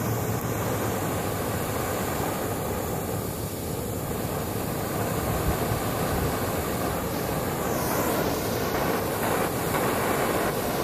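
Hydrogen-oxygen cutting torch flame burning with a steady rushing hiss, fed at low gas pressure.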